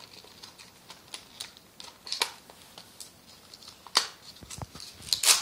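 Scattered light clicks and taps of small plastic toys being handled, with the sharpest ones about two, four and five seconds in.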